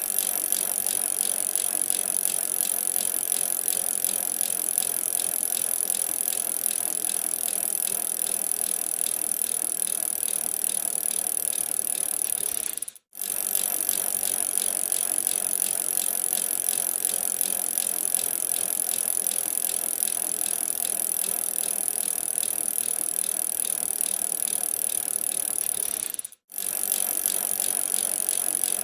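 Bicycle being ridden, with a steady, rapid mechanical ticking. The sound cuts out for an instant twice, about 13 seconds in and near the end.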